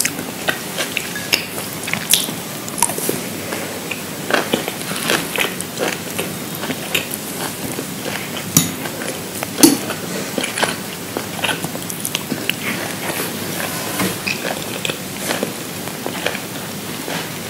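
Close-miked eating sounds: a person biting and chewing crunchy food, with irregular crisp crunches throughout and the loudest bite about nine and a half seconds in.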